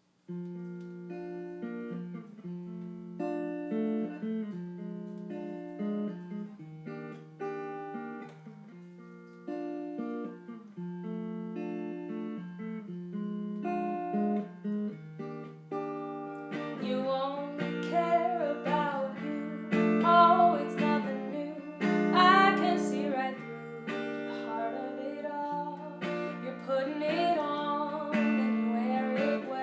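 Acoustic guitar playing a song intro, with a singing voice coming in about halfway through and the music getting louder.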